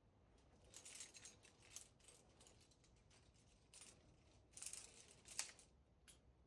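Faint metallic clinking and jingling of climbing gear, carabiners and cams knocking together, in several short clusters, the sharpest clink about five seconds in.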